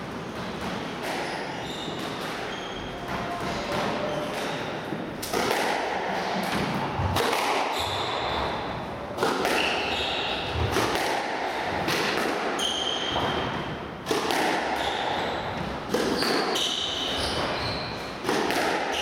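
Squash rally: the ball smacking off rackets and the court walls, with shoes squeaking on the wooden court floor. The hits come thick and fast after about five seconds.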